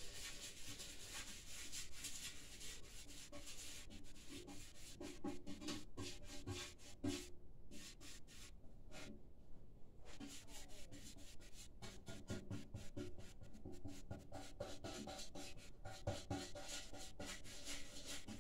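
A brush rubbing coating onto the inside of a metal motorcycle fuel tank in quick, irregular strokes, with a few short pauses.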